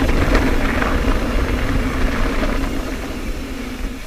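Mountain bike rolling fast down a loose, rooty dirt trail: continuous rumble of tyres and wind, with scattered knocks as the wheels hit roots and a steady hum underneath that fades near the end.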